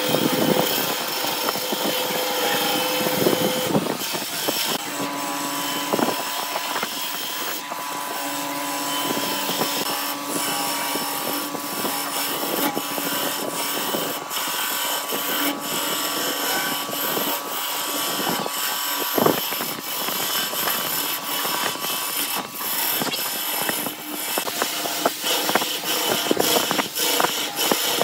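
Wood lathe running while a hand-held turning tool cuts into a spinning blank of bamboo chopsticks set in epoxy resin. A steady motor hum sits under the hiss of the cut, with frequent ticks and knocks from the tool on the work and one sharper knock about two-thirds through.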